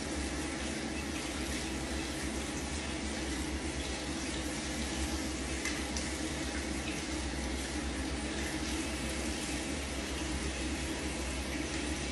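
Tap water running steadily into a bathroom sink as hands are washed under the stream.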